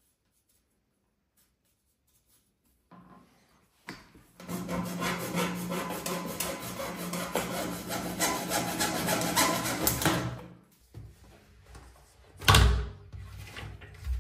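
Hacksaw cutting through a white plastic shower trim strip: a run of quick back-and-forth strokes starting about four seconds in and lasting about six seconds. A single loud knock follows a couple of seconds later.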